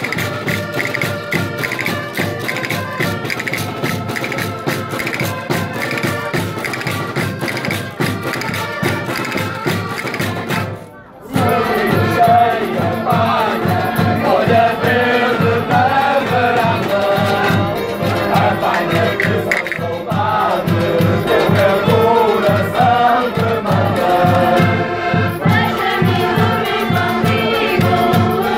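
Portuguese folk rusga music: accordions over a steady beat of bass drum and snare drum. After a short break about 11 seconds in, a group of voices sings together over the accordions and drums.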